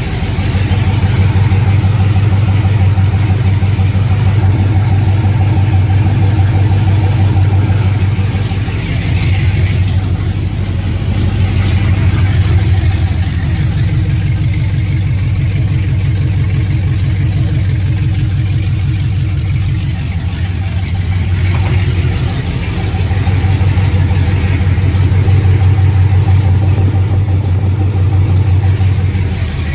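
Chevrolet Trailblazer SS's 6.0-litre LS2 V8 running at a steady idle, loud, just after the first start with newly installed headers, with the level dipping slightly a couple of times.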